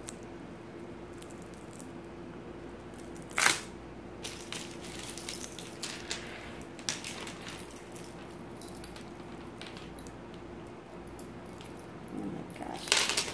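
Plastic bead necklaces clattering as they are set down on a pile of beaded necklaces, one loud rattle about three seconds in, then a few light clicks of beads being handled, with another brief clatter near the end. A faint steady hum sits underneath.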